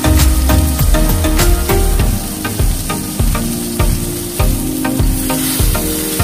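Steak sizzling in hot oil in a cast-iron skillet, under background music with a steady beat. The sizzle gets louder about five seconds in, as tongs move the steak in the pan.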